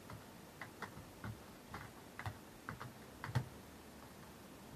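Roller skates clacking on a hard balcony floor as the skater steps along: a faint string of irregular short clicks and knocks, the loudest a little over three seconds in.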